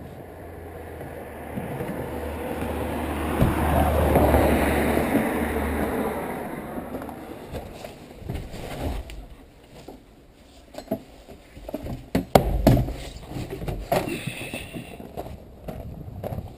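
A vehicle passing, its noise swelling to a peak about four seconds in and fading away, over a low steady hum. Then scattered knocks and clatter of things being handled.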